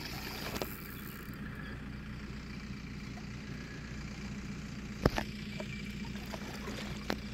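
A steady low engine hum, with one sharp knock about five seconds in.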